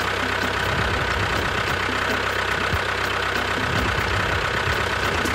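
Steady engine running at idle for the miniature toy tractor, an even low pulsing that holds without change.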